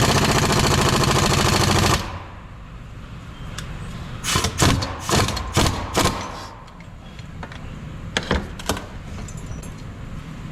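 Impact wrench driving a puller's screw against a tightly stuck part on a front differential, hammering rapidly for about two seconds, then a cluster of short bursts and two more near the end. The part does not come free and proves too tight to pull.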